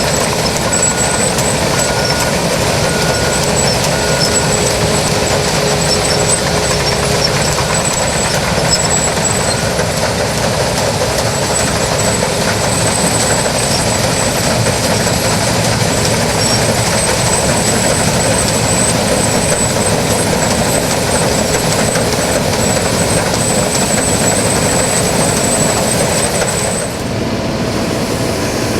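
New Holland TX68 combine harvester running steadily at work in rice, a dense mechanical din with a constant high whine. Near the end the sound dips briefly and changes pitch.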